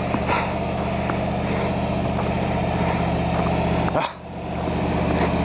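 Snowplow truck engine idling steadily, with a brief drop in level about four seconds in.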